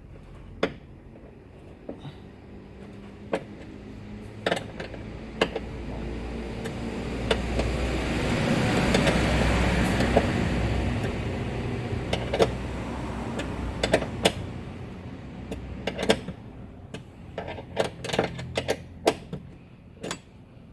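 Scattered metal clicks and taps of a wrench tightening the bolt of the seat-belt adjuster on a Ford Ka's door pillar. In the middle, the noise of a passing vehicle swells and fades over several seconds.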